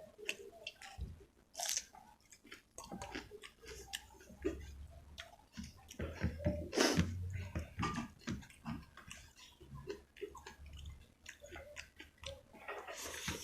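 Wet chewing and mouth smacks of someone eating rice with spicy chicken curry and gravy, in many short irregular smacks with a louder squelchy stretch about halfway through.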